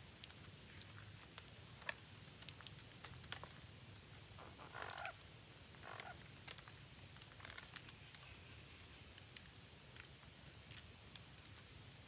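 Faint small clicks and rustles from a flock of red-breasted parakeets moving on branches, with two short soft calls about five and six seconds in.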